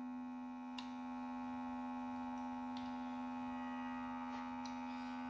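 Steady electrical hum, one pitch with many overtones, with a few faint light clicks.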